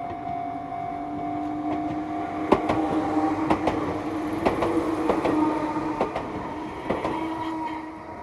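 Electric train running past, its wheels clacking over rail joints, with a steady motor whine underneath; the sound dies away near the end.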